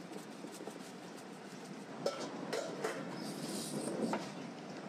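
Steady background noise with scattered light clicks and taps of sandwich vegetables and a squeeze bottle being handled on a wooden board, and a short hiss about three and a half seconds in.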